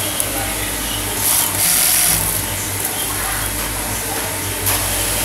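Golden Wheel high-head industrial sewing machine humming steadily, with short runs of stitching about a second and a half in and again near the end as hair wefts are sewn onto a wig cap.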